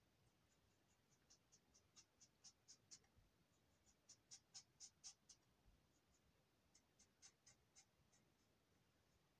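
Faint scratching of a Twinmarker alcohol marker tip on paper in short, quick strokes, coming in three runs of about four strokes a second.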